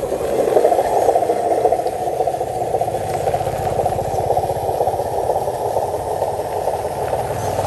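Radio-controlled truck's electric drive motor and gearbox running with a steady whir as the truck works with a coupled dump trailer on dirt.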